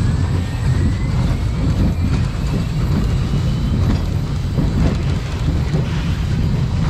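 Spinning roller coaster car running along its steel track, heard from onboard: a steady low rumble of the wheels on the rails, with a faint whine that rises slowly in pitch over the first few seconds.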